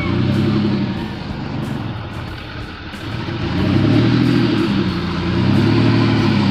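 Old pickup truck's engine running and being revved, its pitch dropping and rising again a few times. The engine has just been got running: it had only needed gas.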